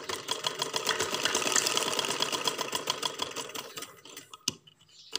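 Sewing machine stitching at a fast, even rate, its needle clattering rapidly, then slowing and stopping about four seconds in. Two sharp clicks follow near the end.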